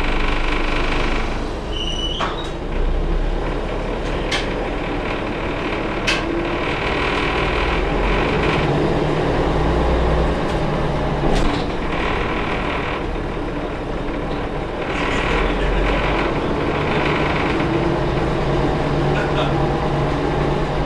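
Mercedes-Benz OM 407 h naturally aspirated inline six-cylinder diesel engine of a bus running, heard from inside the rear of the cabin, its pitch and loudness rising and falling. Sharp clicks and rattles from the cabin come through now and then.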